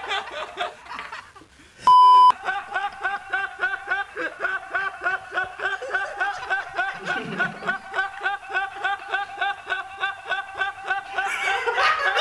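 People laughing hard, mostly one high, rhythmic laugh repeating about four times a second. About two seconds in, a short, loud electronic beep at a single pitch cuts in.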